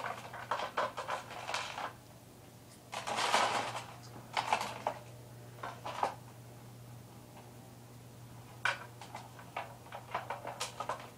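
Irregular clusters of clicks and clatter, with a longer rustling burst about three seconds in, over a steady low hum.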